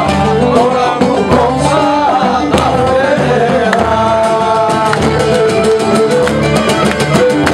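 Live Cretan sousta dance music: a Cretan laouto strummed rapidly with a pick keeps the rhythm under a melody line.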